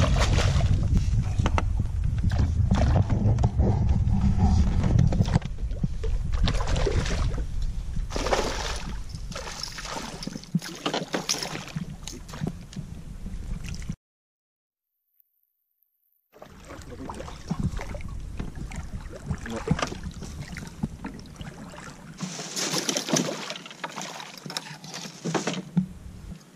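Water sloshing and splashing around a small boat, over a low rumble that fades after about five seconds. The sound cuts out completely for about two seconds midway.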